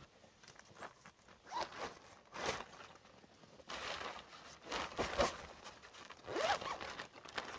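A zipper being pulled in several short strokes, some with a quick rise in pitch.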